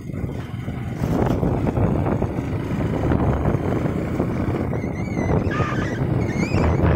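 Wind buffeting the microphone over the low, steady running of a motorcycle riding along a road, with a few short warbling chirps near the end.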